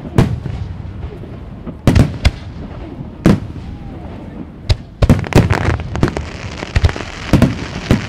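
Aerial firework shells bursting overhead: about a dozen sharp bangs, irregularly spaced, sometimes two or three in quick succession. From about five seconds in, a dense crackling of sparkling stars runs under the bangs.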